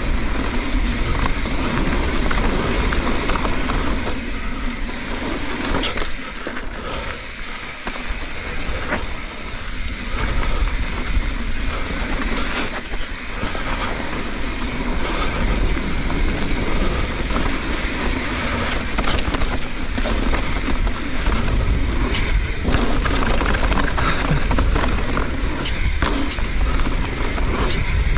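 Mountain bike riding fast down a dirt jump trail: wind rushing over the action camera's microphone and tyres rolling on dirt, with scattered knocks and rattles from the bike over the jumps.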